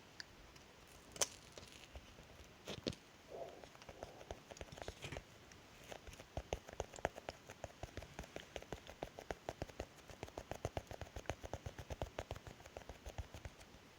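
Close-miked mouth sounds of chewing: soft wet clicks and smacks, scattered at first, then coming fast, several a second, from about halfway through.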